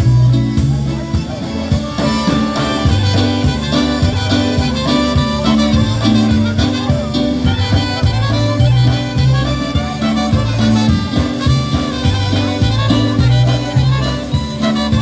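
Live polka band playing an instrumental tune with brass and drum kit over a bass line on a steady beat.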